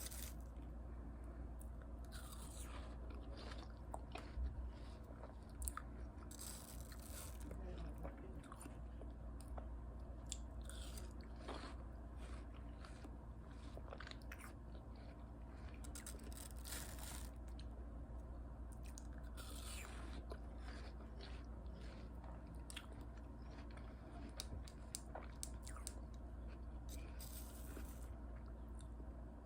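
Close-miked biting and chewing of watermelon: irregular crunches and mouth clicks scattered throughout, over a steady low hum.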